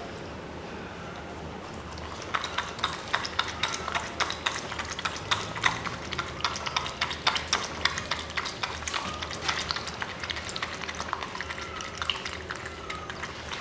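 Miniature schnauzer eating wet raw food from a stainless steel bowl: a quick, uneven run of wet licking and chewing clicks, starting about two seconds in.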